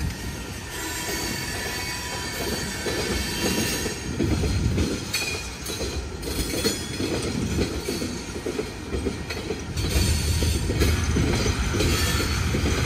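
Norfolk Southern freight cars rolling past: a steady rumble and rattle of steel wheels on rail, with thin, high wheel squeals over it.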